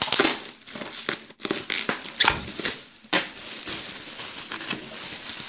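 Plastic bubble wrap rustling and crinkling as it is pulled open and off a laptop, with irregular sharp crackles near the start and a steadier rustle after about three seconds.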